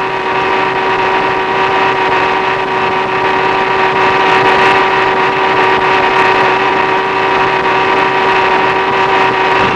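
Whirling-arm rain erosion rig running at speed, its large electric motor spinning material samples through artificial rain. It makes a steady whine of several held tones over a noisy hiss, building up over the first second and then holding level.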